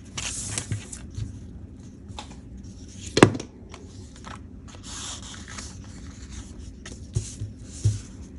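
Scissors cutting paper from a magazine page, with the paper rustling as it is turned, a few small taps, and one sharp click about three seconds in.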